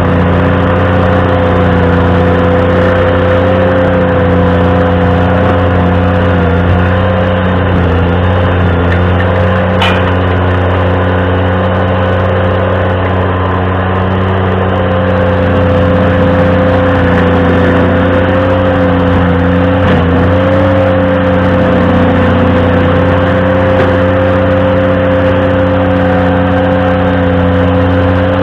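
Ventrac compact tractor's engine running steadily, driving a stump grinder attachment. A steady tone rides over the engine, and there is a single brief click about ten seconds in.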